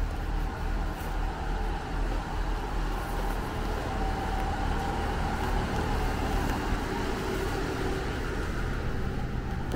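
KiHa 100-series diesel railcar idling with its engine running, a steady low rumble.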